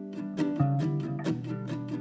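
Background music led by a plucked string instrument, ukulele- or guitar-like, picking a steady run of notes.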